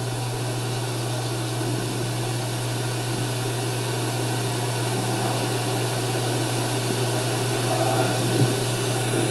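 Steady low hum with a constant hiss underneath, an unchanging background noise with no distinct events.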